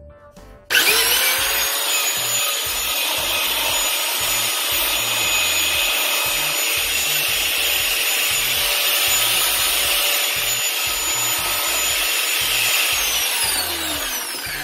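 Electric wall sander with a rotating sanding head, running on newly replaced carbon brushes: it starts abruptly about a second in and runs steadily with a high whine. Near the end it runs down, its pitch falling.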